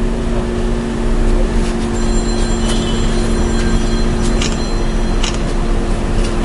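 Steady hum of an idling motor vehicle engine, with a few short clicks in the second half.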